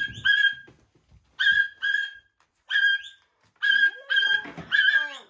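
A pet's short, sharp, high calls repeated mostly in pairs about every second, with a gliding whistle-like sound under them near the end.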